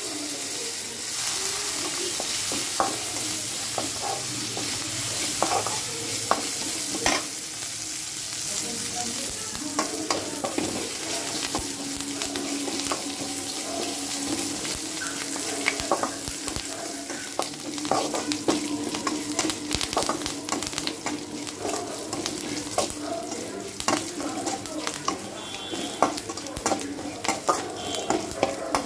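Tempering of curry leaves, onion, dal and dried red chillies sizzling in hot oil in a metal kadai, while a flat metal spatula stirs, scraping and clicking against the pan. The sizzle is a little louder in the first several seconds.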